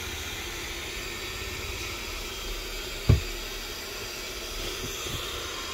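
High-speed AVC BA10033B12U 12 V DC centrifugal blower fan running, a steady hiss of rushing air. One sharp knock sounds about three seconds in.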